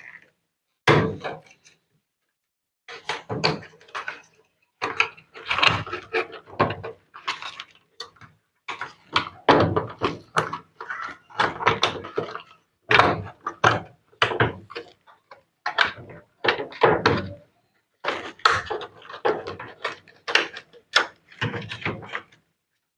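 Irregular clicks, knocks and thuds of hands working on a top-load washing machine's parts as its wiring harness is removed, coming in short clusters with brief pauses between them.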